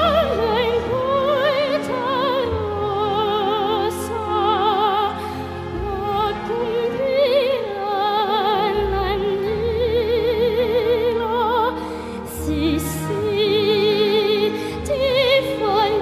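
Background music: operatic singing in a classical style, long held notes with a wide vibrato over a sustained low accompaniment.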